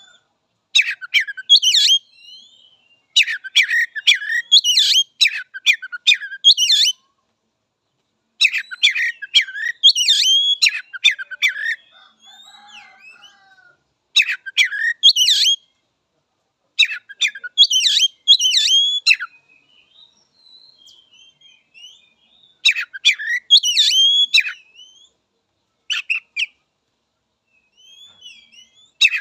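Oriental magpie-robin (kacer) singing in about seven bouts of quick, varied whistled and harsh notes, each a second or few long, with short pauses and soft twittering between them.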